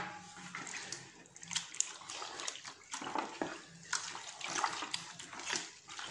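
A hand mixing and kneading wet teff batter in a plastic bowl, making irregular wet slaps and sloshing.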